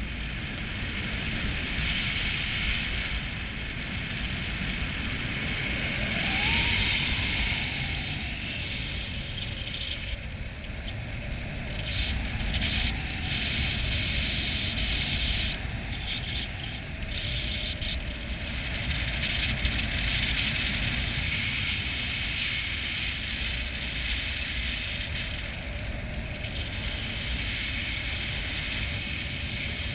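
Paramotor engine and propeller running in flight, with wind rushing over the microphone. The engine note rises about six seconds in, then settles and wavers a little lower.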